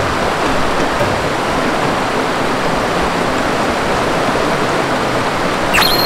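Shallow mountain stream rushing over rocks and through riffles, a steady hiss of water.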